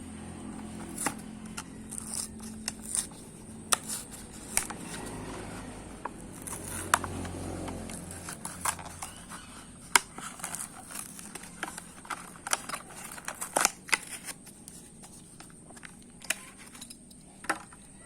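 Hot Wheels blister pack being opened by hand: a string of sharp clicks and snaps with plastic and cardboard crinkling and scraping, the loudest snap about ten seconds in.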